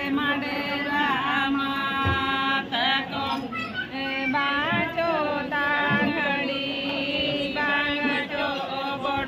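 A group of women singing together in a chant-like, unaccompanied folk song, their voices held in long wavering lines.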